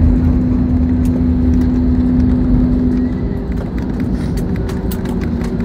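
Cabin noise of an Airbus A320-family airliner in its landing rollout: a heavy rumble of wheels and engines on the runway, with light rattles. A steady hum in it stops about three seconds in and is replaced by a slightly higher hum.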